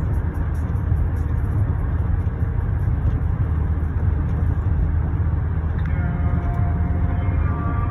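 Road noise inside a moving car's cabin at highway speed: a steady low rumble of tyres and engine. About six seconds in, a few steady tones come in over it.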